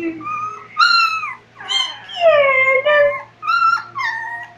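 Pet dog making its 'talking' vocalizations: a string of about five high-pitched, drawn-out whines and yowls that bend up and down in pitch, the longest one falling in the middle.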